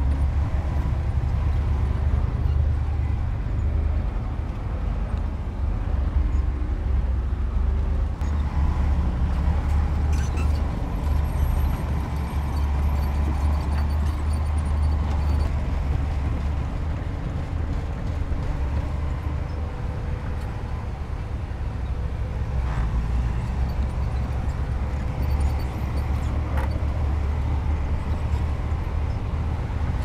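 Heavy diesel engine of earthmoving machinery running steadily, a deep rumble with no marked revving.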